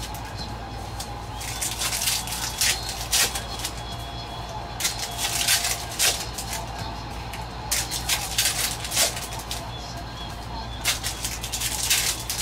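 Crackling and rustling of wrappers and trading cards being handled, in short irregular bursts, over a steady low hum.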